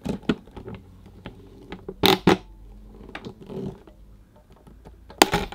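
Handling noises: light clicks and rustling, with two sharp knocks about two seconds in and another just before the end.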